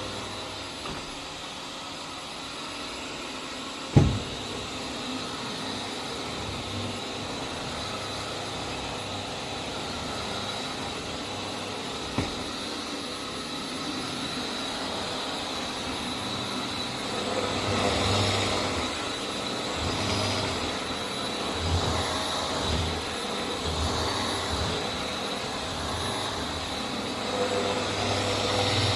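Vax Air Steerable Max upright vacuum cleaner running steadily with a thin high whine. There is a sharp knock about four seconds in, and the sound grows louder and more uneven in the second half.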